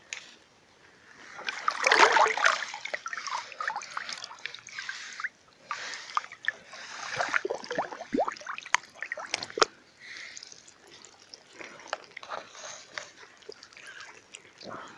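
Water splashing and sloshing in irregular bursts with small clicks and knocks, loudest about two seconds in.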